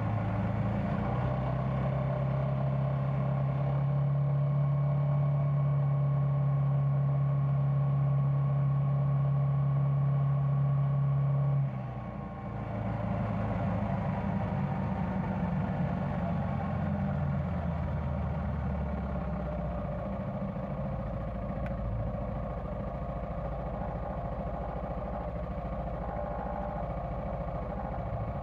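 Yamaha Tricity 300 three-wheeled scooter's single-cylinder engine running at a steady cruise with an even drone. About twelve seconds in the steady note drops away and the engine runs on more quietly.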